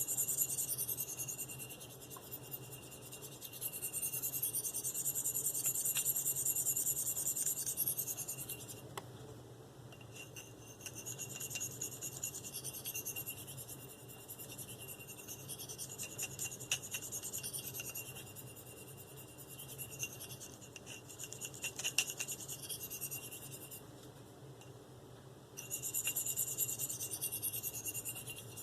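Knife edge of V-Toku2 steel drawn with very light pressure across a fine Spyderco 302f ceramic stone: a thin, high scraping hiss that comes in runs of strokes with short breaks between them. This is the fine honing stage, refining the edge and working down the burr.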